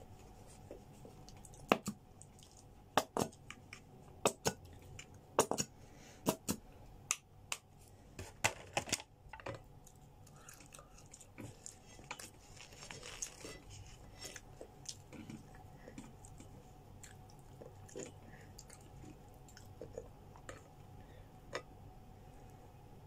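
Close-miked eating sounds: sharp crunches and crackles of food being chewed and crisp flatbread being torn by hand, dense for the first nine seconds or so and sparser after, over a faint steady hum.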